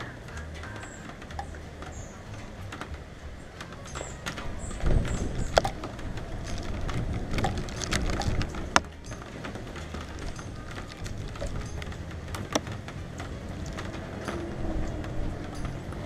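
Wind gusting against the microphone in low rumbles, strongest from about five seconds in, with scattered sharp taps of raindrops striking the camera's cover.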